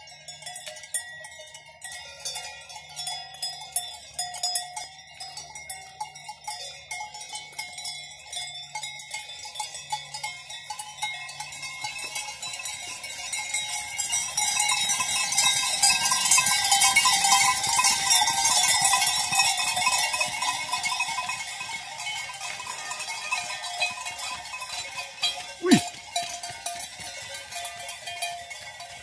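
Cowbells on a passing herd of cows clanking irregularly, several bells ringing at different pitches, louder in the middle as the cows pass close by. One sharper, louder knock comes near the end.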